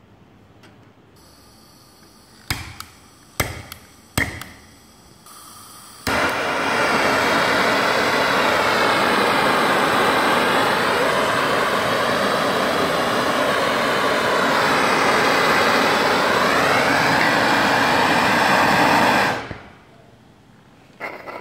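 Three sharp clicks, then a faint gas hiss, and about six seconds in a butane blowtorch lights and burns with a loud steady rushing hiss for about thirteen seconds. Its pitch shifts a little near the end before it cuts off suddenly. A single click follows.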